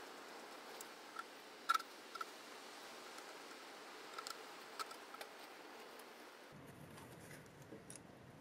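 Faint, scattered metal clicks and light taps from a socket and brake-caliper banjo bolt being worked loose by a gloved hand, over a low hiss. The loudest click comes a little under two seconds in.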